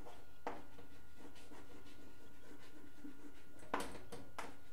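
Chalk writing on a blackboard: faint scratchy strokes with a few sharper chalk taps, the two loudest near the end, over a steady low background hum.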